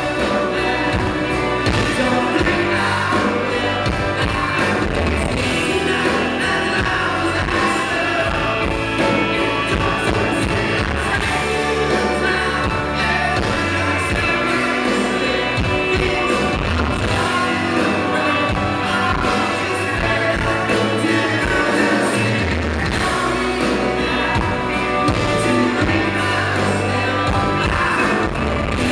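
Live rock band playing a song, with a man singing lead into a handheld microphone over guitars and a steady bass.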